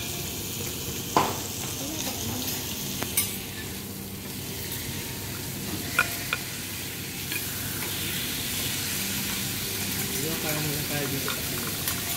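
Wagyu beef steaks sizzling steadily on a steel teppanyaki griddle. Sharp metal clinks of the chef's spatula and knife against the plate sound about a second in, about three seconds in and about six seconds in.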